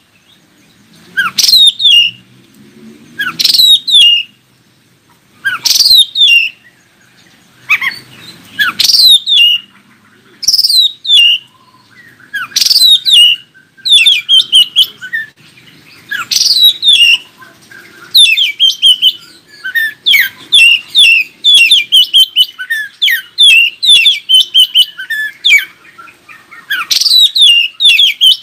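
Oriental magpie-robin singing loud, repeated phrases of fast downward-sweeping whistled notes, one every second or two. About two-thirds of the way in the song turns into a rapid, almost unbroken run of short chattering notes.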